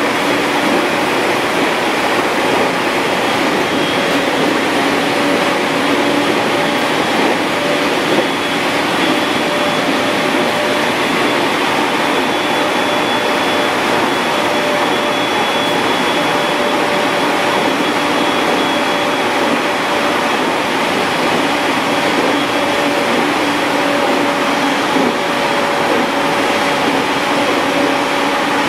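A 701-series electric train running steadily along the line, heard from inside: an even rumble and rush of wheels on rail with a few faint steady tones over it.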